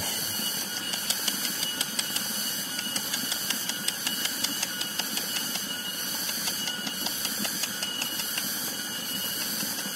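Steady high hiss of outdoor background noise, with a run of faint, irregular clicks through the middle.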